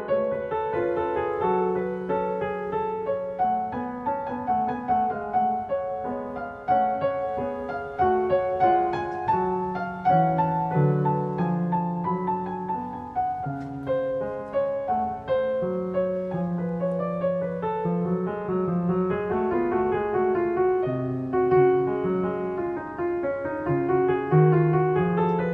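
Background piano music, a continuous flow of notes and chords.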